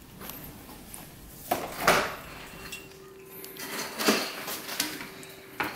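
Refrigerator being opened and loaded: a few sharp knocks and clatters of the door and shelves as a metal springform pan on a wire trivet sling is carried in, with a faint steady hum starting about two seconds in.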